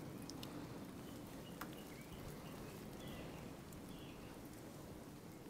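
Quiet rural ambience with faint, distant bird calls chirping now and then, and a couple of soft clicks in the first two seconds.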